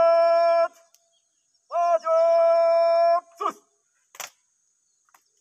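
A man shouting two long, drawn-out drill commands to a rifle guard, each held on one steady pitch, the second longer than the first. A single sharp crack comes about four seconds in.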